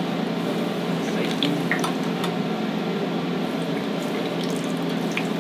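Corn tortillas frying in a deep fryer's hot oil: a steady bubbling sizzle with scattered crackles, over a low steady hum.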